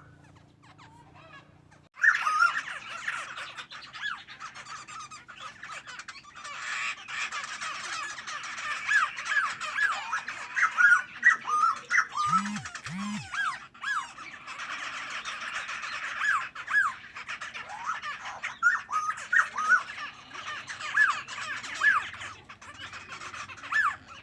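Songbird singing: many short, sharp whistled notes repeated in quick phrases over a steady hiss. Two brief low calls come about halfway through.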